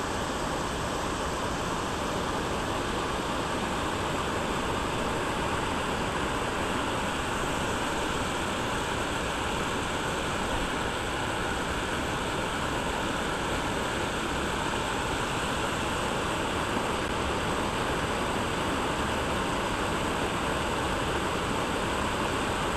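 Bond Falls: water rushing steadily over its rock ledges, a constant even roar with no let-up.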